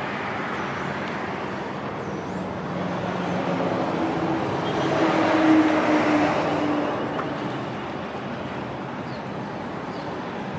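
Road traffic noise, swelling as a vehicle passes about halfway through with a faint falling pitch, then easing back to a steady hum.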